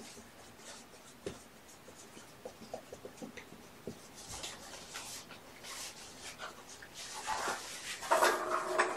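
Soft scratching and rustling of fabric and fur as a black kitten is handled and petted on a cloth hammock bed, with scattered small clicks. Near the end a louder, brief pitched sound comes in.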